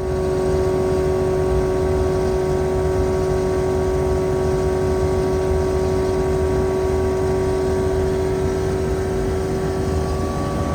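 RANS S-7S's turbocharged EP912STi engine and two-blade propeller running steadily at high power, a constant loud drone with several fixed tones over a rough low rumble and wind hiss.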